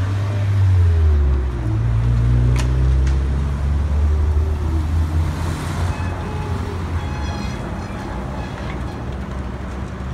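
Street traffic: cars driving past close by with their engines running, loudest in the first half, with one sharp click about two and a half seconds in.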